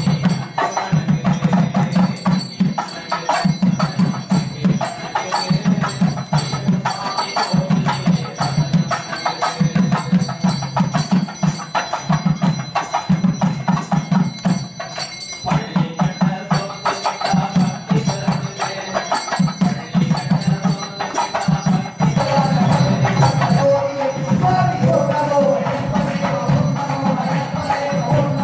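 Devotional puja music: a fast, continuous clatter of bells and small percussion over a steady, pulsing low drumbeat. It grows louder, with a melody line entering, about three-quarters of the way through.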